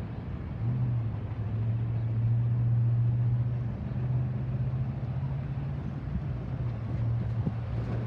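Cars and pickup trucks driving across a railroad grade crossing, with a steady low engine hum from the nearest vehicle.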